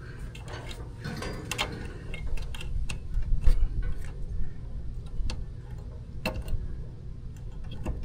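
Irregular light clicks and taps of hands working wire connectors and terminals on an air-conditioner contactor, over a low steady rumble.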